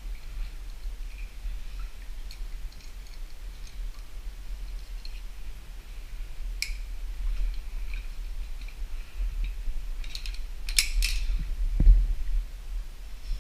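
Scattered light clicks and taps over a low steady rumble, with a cluster of sharper clicks about eleven seconds in and a dull thump just after.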